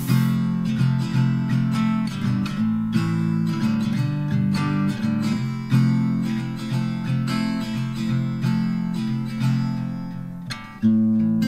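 Background music: acoustic guitar strummed in a steady rhythm, dipping briefly near the end before coming back in on a strong strum.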